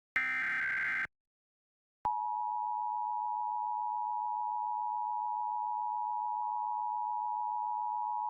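Emergency Alert System header: a last one-second burst of SAME digital data tones, a short pause, then the steady two-tone EAS attention signal starting about two seconds in. Together they announce a required monthly test of the alert system.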